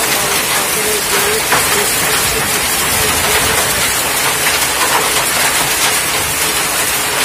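Hailstorm: hail and heavy rain pelting the ground in a steady, dense hiss with scattered small impacts.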